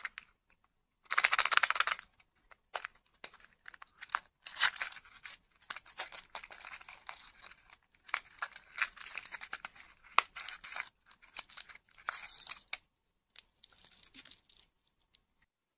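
A small cardboard toy box being torn open and handled by hand, tearing and crinkling. The loudest tear is a burst about a second in, followed by on-and-off rustling and small clicks that die down near the end.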